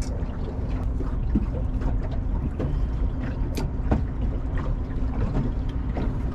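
Wind rumbling on the microphone and water slapping against the hull of a small fishing boat adrift, with scattered light knocks and a faint steady hum.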